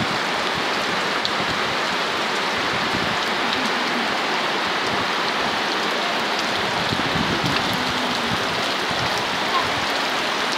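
Rain falling steadily onto floodwater covering a street, an even, unbroken hiss of drops striking the water.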